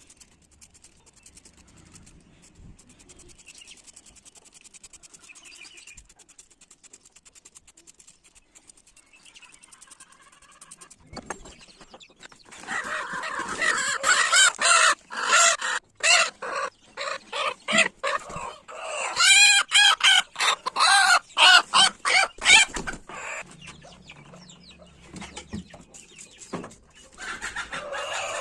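Chicken calling loudly: after a faint start, a long run of repeated short clucks and squawks, each rising and falling in pitch, then one more call near the end.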